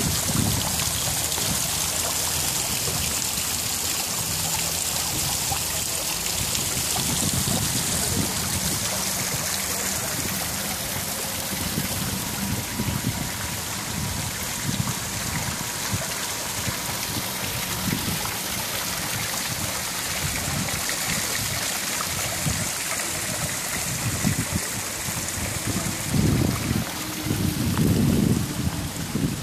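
Water running and splashing down an artificial rock waterfall, a steady rushing noise.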